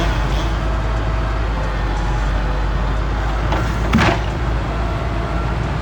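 A steady low engine-like rumble, with a single sharp knock or crack about four seconds in.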